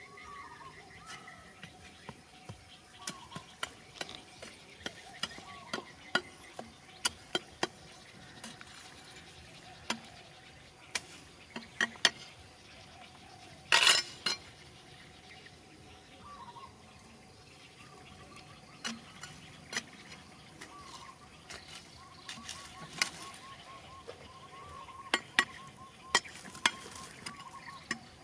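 Small hand pick striking and scraping into a bank of clay and rock: irregular sharp knocks, at times several a second, with one louder, longer strike about fourteen seconds in.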